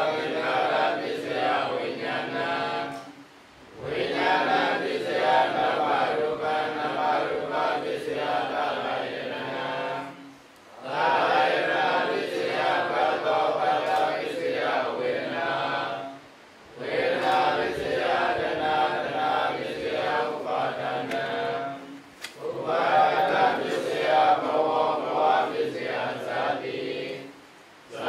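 Group of Buddhist monks chanting together in unison. The chant comes in phrases of about six seconds, each followed by a brief pause for breath.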